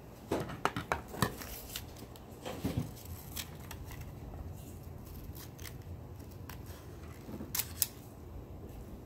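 Scissors snipping through paper: a quick run of cuts in the first second or so, a few more around two and a half seconds, and two last snips near the end.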